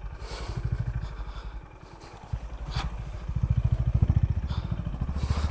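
Honda H'ness CB350's single-cylinder engine thumping steadily at low speed. It eases off for a moment about two seconds in, then pulls again. A few short knocks sound over it.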